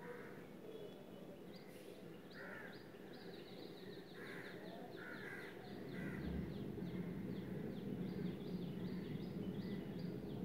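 Crows cawing, about five short harsh caws in the first six seconds, while a small bird keeps up a rapid series of short falling chirps from about three seconds in. A low steady hum underneath grows louder about six seconds in.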